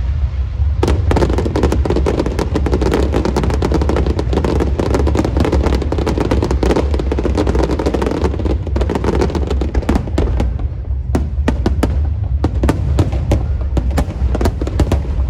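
Fireworks and firecrackers going off: a dense, rapid crackle of sharp pops for most of the first ten seconds, thinning out to separate bangs near the end.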